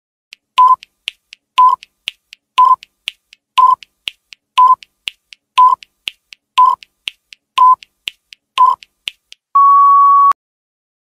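Countdown timer sound effect: a short beep once a second with a faint tick between each, nine beeps in all, then one longer, slightly higher beep near the end that signals time is up.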